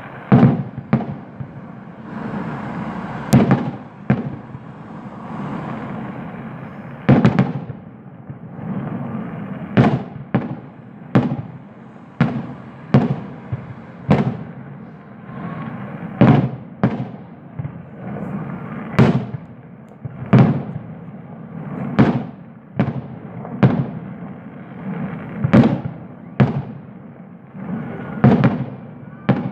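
Fireworks going off: a long run of sharp bangs, about one every second or two at uneven intervals, some echoing briefly, over a steady background noise.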